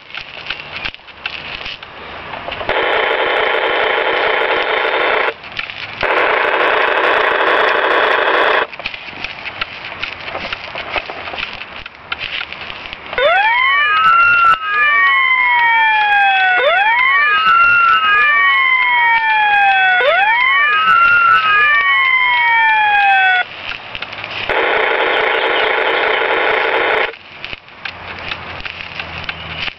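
Electronic toy fire-engine siren sounds. A steady buzzing blare sounds twice early on, then about ten seconds of rising-and-falling wail sweeps that overlap one another, then the steady blare once more near the end.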